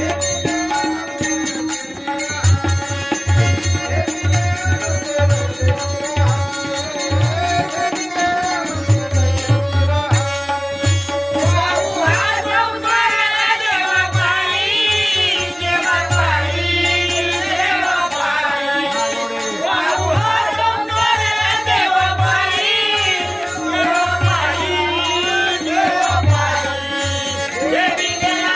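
Marathi devotional bhajan: a drum beats steadily under quick, even clashes of small hand cymbals over a held droning note, and singing comes in about twelve seconds in.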